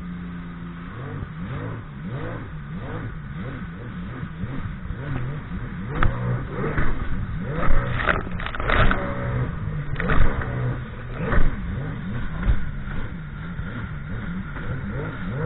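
Sea-Doo Spark personal watercraft engine revving up and down over and over. Several sharp hits come between about six and twelve seconds in.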